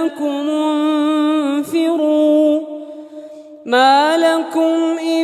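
Male voice reciting the Quran in melodic tajweed style, holding long drawn-out notes. The voice drops away for about a second midway, then comes back on a rising note.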